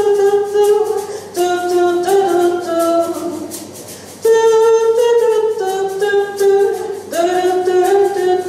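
A woman singing unaccompanied into a microphone, a melody without words in three phrases of held notes, each stepping downward in pitch.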